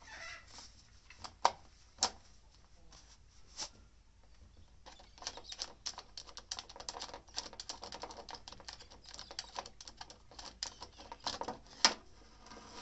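Hand work on a Ryobi 50cc petrol chainsaw's side cover: plastic and metal clicking and rattling as its fastenings are undone and the sprocket cover is worked loose. A few sharp clicks come in the first seconds, then a quick run of small clicks and rattles from about five seconds in, with a loud click near the end.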